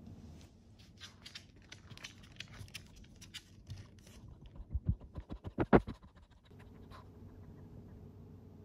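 A Shih Tzu's claws clicking and scratching on a wooden floor as it moves about, then a quick rhythmic run of louder thumps close to the microphone. About two-thirds of the way in this gives way to a faint steady hum.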